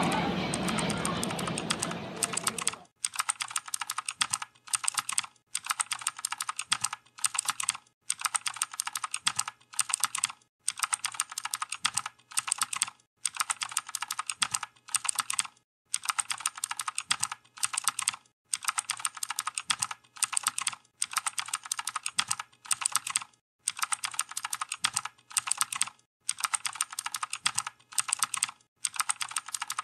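Rapid keyboard-typing clicks, in bursts of about a second with short breaks between, starting about three seconds in as the earlier sound fades out.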